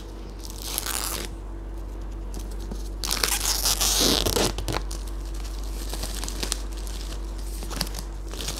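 Plastic shrink-wrap being torn and peeled off a book: a short rip about a second in, then a longer, louder tearing and crinkling from about three to five seconds, followed by lighter scattered crinkles as the wrapper comes away.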